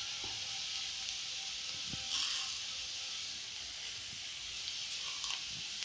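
Hot oil sizzling steadily in a kadhai with browned onion and freshly added cumin and mustard seeds, with a brief louder sizzle about two seconds in and a few faint taps of the spoon.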